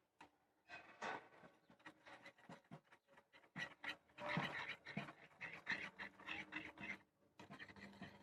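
Glue and talc being stirred into slime, with quick, irregular sticky clicks and squelches that get busier partway through.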